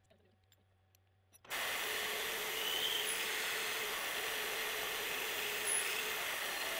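Near silence with a few faint clicks, then about a second and a half in a CNC mill's boring head starts cutting steel, enlarging a bored hole with a steady, even machining noise.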